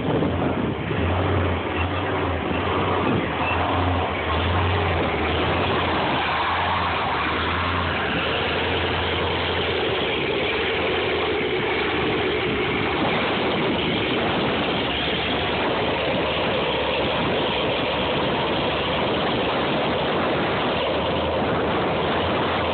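Dodge Challenger's engine idling as the car creeps up to the drag-strip start line. A low, uneven pulsing rumble for the first ten seconds or so, then a steadier drone.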